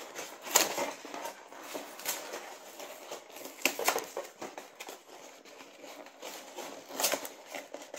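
Cardboard box and plastic packaging being handled: light rustling and crinkling with a few scattered sharp taps as the toy and its tray are worked out of the box.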